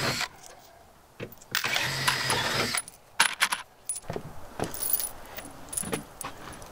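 Steel bolts and washers rattling as a hand rummages through a cardboard box of hardware, about a second and a half in, followed by a series of sharp metal clinks as the pieces are handled.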